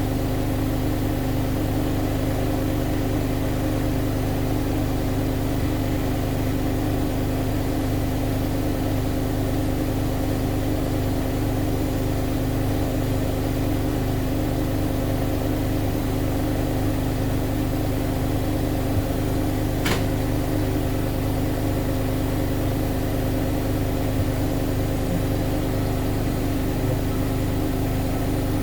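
Siemens Siwamat iQ 716 washing machine running at a steady speed with a constant hum, with a single click about two-thirds of the way through.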